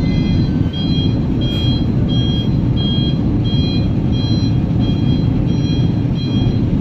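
A truck's reversing alarm beeping at a steady, even rate over the low, steady running of heavy truck engines.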